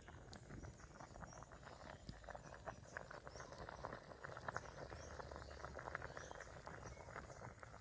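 Curry boiling in a clay pot over a wood fire: a faint, steady stream of small bubbling pops and crackles.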